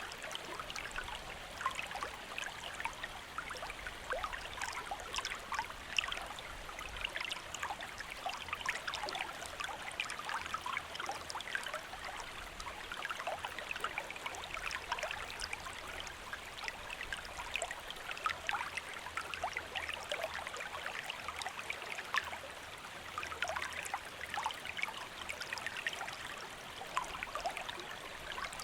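Shallow stream flowing steadily, a continuous babble of small splashes and trickles over rocks.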